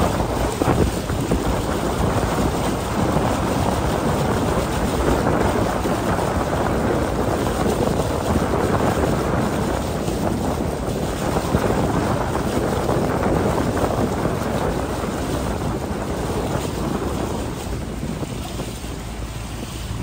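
Steady rush of wind buffeting the microphone, with water rushing along the hull of a narrow wooden river boat under way.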